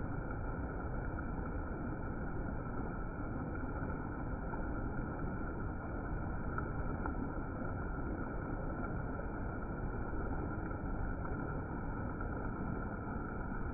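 Rushing waterfall water slowed down in slow-motion playback, heard as a steady, muffled low rumble with no highs.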